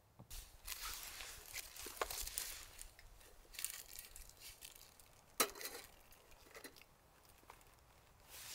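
Packaging crinkling and being torn open by hand in short, irregular bursts, with one sharp click about five and a half seconds in.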